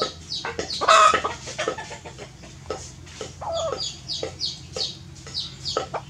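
Chickens clucking, with a run of short, high, falling chirps throughout and one louder call about a second in.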